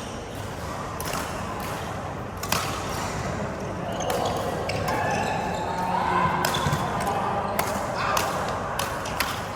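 Badminton play in a hall: a string of sharp, irregularly spaced racket hits on the shuttlecock and footfalls on the court, with people's voices chattering underneath.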